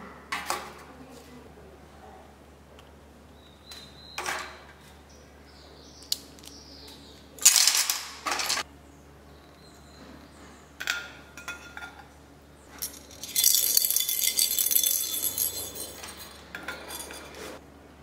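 Plastic and stainless-steel bowls and trays being set down one by one on a stack, clinking and clattering in short separate knocks. A longer rattling clatter comes about two-thirds of the way through.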